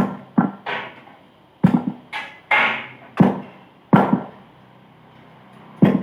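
Hammer blows on the steel parts of a truck's power steering box being knocked apart: about nine sharp, irregular strikes, each ringing briefly.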